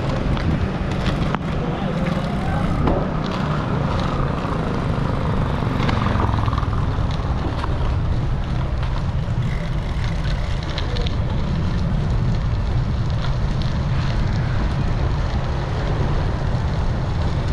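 Wind rushing over a bicycle rider's action-camera microphone while riding, a steady low rumble mixed with road noise and a few light rattles and clicks.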